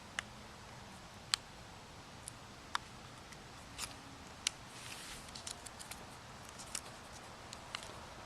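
Scattered small sharp clicks and brief soft rustles of hands handling the plastic shark fin antenna and its parts on the car roof.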